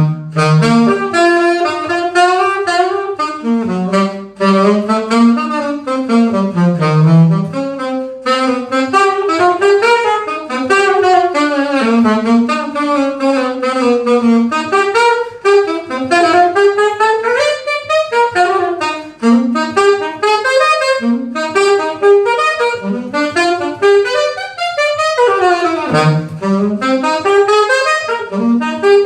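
Live jazz: a single wind instrument, most like a saxophone, playing a fast, winding solo line of quick note runs.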